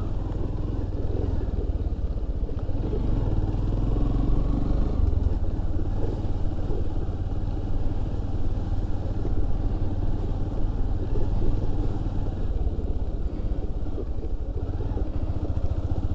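Motorcycle engine running steadily with a continuous low rumble as the bike is ridden along a dirt trail.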